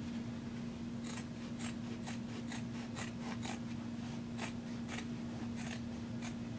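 Orange-handled Fiskars fabric scissors snipping through cotton, a dozen or so quick irregular cuts starting about a second in, as the seam allowances of a sewn shirt collar are trimmed to cut bulk. A steady low hum runs underneath.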